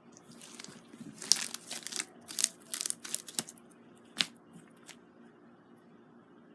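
Slime being squeezed and worked by hand, giving a run of crinkly crackles and sharp pops for about four seconds, with one last pop near the end.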